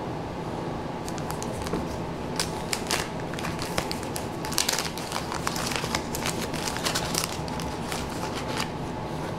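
Wax-paper wrapper of a 1989 Topps baseball card pack crinkling and tearing as it is peeled open by hand: a run of sharp crackles, thickest in the middle and stopping shortly before the end.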